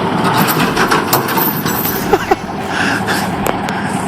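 M923 military truck's diesel engine running under strain against a tree stump, a dense rough noise broken by many sharp cracks and knocks. A couple of short rising squeaks come about two seconds in.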